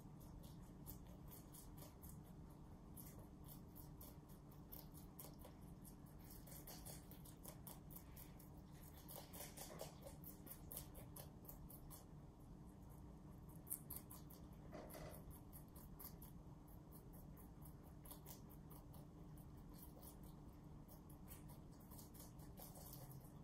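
Rabbits chewing leafy greens: a quiet, fast run of crisp crunching clicks, with a few louder crunches in the middle.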